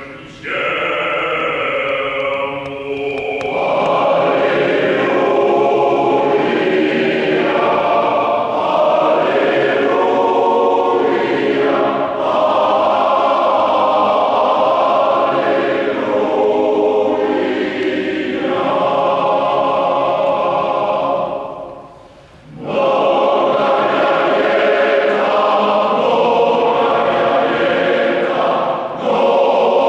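Large male-voice choir singing in parts. The sound drops away briefly a little past two-thirds of the way through, then the full choir comes back in.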